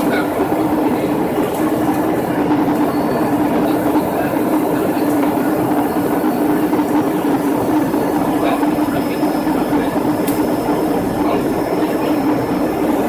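Airliner cabin noise in flight: the steady drone of the jet engines and rushing air, with a constant hum running through it.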